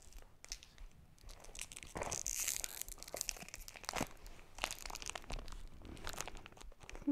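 Packaging crinkling and tearing as it is handled, with sharp crackles throughout and a louder stretch for about a second from two seconds in.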